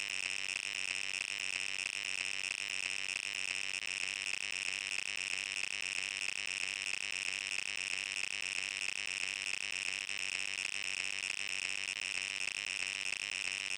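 A continuous high-pitched electronic buzzing tone, held at one pitch and one level throughout, with no speech heard over it.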